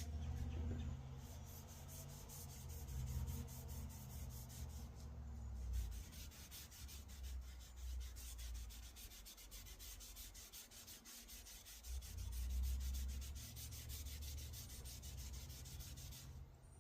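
Wood stain being rubbed onto a wooden clock board in quick, even back-and-forth strokes that stop near the end, over a low steady rumble.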